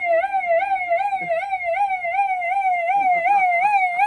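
A person imitating a police siren with their voice: a high, fast warbling wail that rises and falls about three times a second, held without a break.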